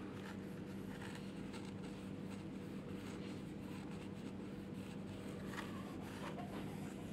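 Fingernail gently scraping a line of baked-on toner off a blade in a Brother colour laser toner cartridge: faint, soft scratches. A steady low hum runs underneath.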